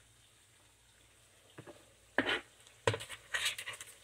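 A few sharp knocks and crackly rustles as a large onion and a kitchen knife are brought to and set down on a wooden cutting board, over the faint sizzle of potatoes frying in a pan.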